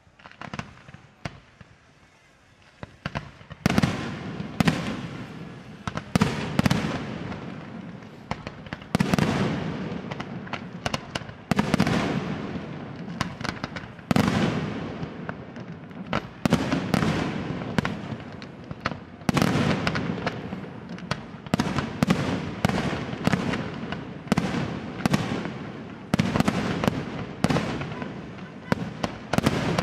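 Aerial firework shells bursting one after another. A few faint pops come in the first three seconds, then loud bangs follow at roughly one or two a second, each trailing off into a rolling rumble.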